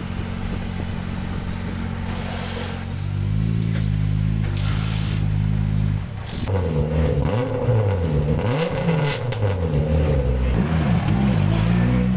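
Rally car engine idling steadily, a little louder from about three seconds in. From about six seconds in it is revved repeatedly, its pitch rising and falling in quick sweeps.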